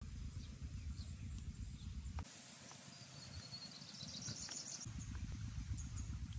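Faint outdoor ambience: a low, uneven rumble of wind buffeting the microphone, which drops away for a couple of seconds. Faint high chirping is heard while the rumble is gone.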